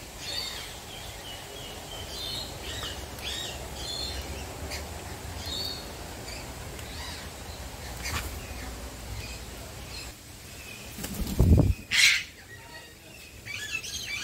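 Several birds chirping and calling in short, high notes. About eleven seconds in there is a loud low thump, followed at once by one sharp, loud squawk.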